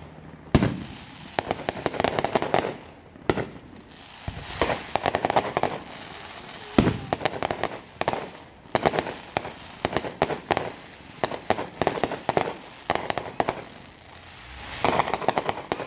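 Aerial fireworks display: shells bursting with several sharp bangs, between and after them spells of rapid crackling from crackle-effect shells.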